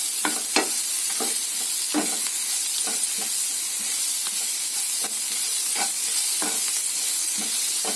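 Onions, green chillies and curry leaves frying in oil, a steady sizzle, with a spoon scraping and knocking against the pan at irregular moments as the mixture is stirred.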